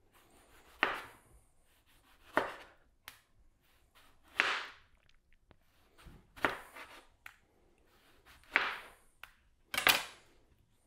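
Knife slicing a tomato: six unhurried cuts, one every one and a half to two seconds.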